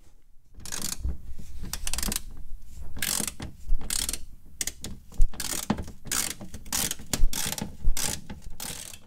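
Hand socket ratchet clicking in repeated runs as it turns a 10 mm bolt out from the underside of a car.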